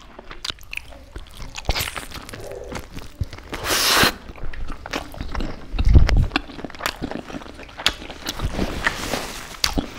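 Close-miked chewing and biting of chicken curry and rice: wet mouth clicks and smacks, with a rustling burst about four seconds in and a low thump about six seconds in.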